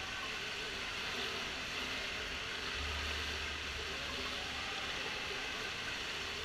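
Steady hiss of indoor pool ambience: water moving in the pool and its gutters, with a low hum underneath that swells for about two seconds in the middle.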